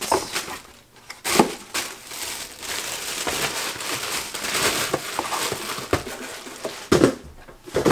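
Clear plastic packaging wrap crinkling and crumpling as it is bunched up and stuffed into cardboard boxes, with a couple of sharper knocks from the boxes being handled.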